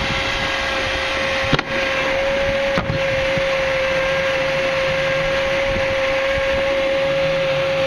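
Vacuum cleaner running steadily, a constant whine over a rushing noise, as it draws air through the pipe of a home-made vacuum railway. Two sharp clicks about one and a half and three seconds in, as the clear plastic sheet is laid down over the bucket to seal it.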